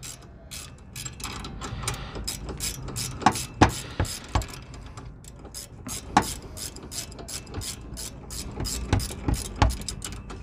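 Ratcheting wrench clicking in short irregular runs as the sway bar end link nut is backed off, the stud held still with an Allen key; a few of the clicks are louder.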